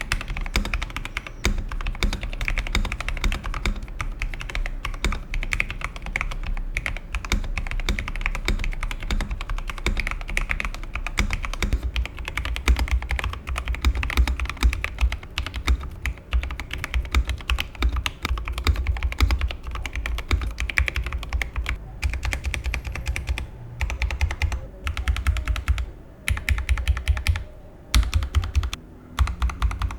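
Steady fast typing on an EPOMAKER TH80 mechanical keyboard with tactile Gateron Pro Brown switches: a dense run of key clacks, broken by a few short pauses near the end.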